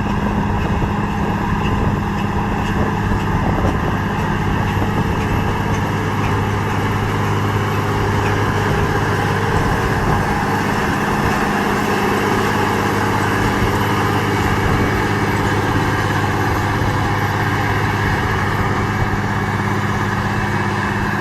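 A machine's engine running steadily at a constant speed, with a steady low hum throughout.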